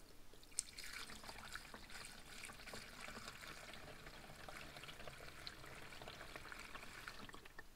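Washer fluid pouring from a plastic gallon jug into a car's windshield washer reservoir, a faint steady trickle that starts about half a second in and dies away near the end.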